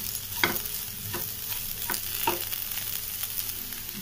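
Sliced bitter gourd and onions sizzling in oil in a pan while a wooden spatula stirs them, with a few sharp scrapes of the spatula against the pan in the first half.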